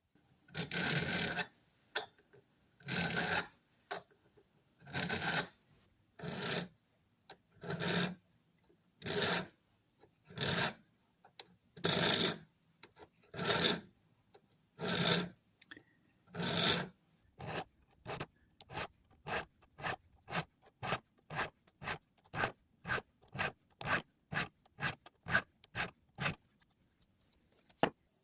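Hand strokes of an abrasive rubbing on metal, one about every second and a half, then quicker and shorter strokes at about two a second for the last ten seconds.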